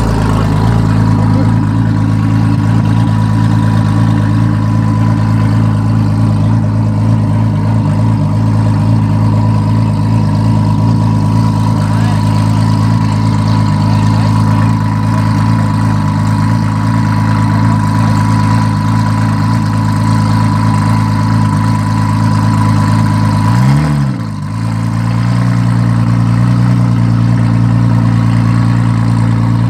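Tuned Nissan GT-R R35's twin-turbo V6 idling steadily and loudly at the start line. About 24 seconds in it revs up once briefly and drops back, then settles into idle again.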